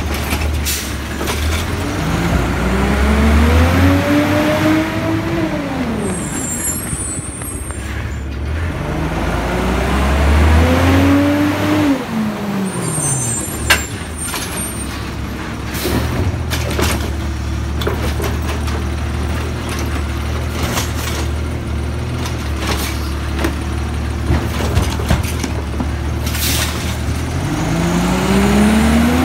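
Automated side-loader garbage truck's engine rising and falling in pitch twice, each time followed by a short air-brake hiss. It then runs steadily and rises again near the end as the truck pulls away. A sharp knock is heard near the middle.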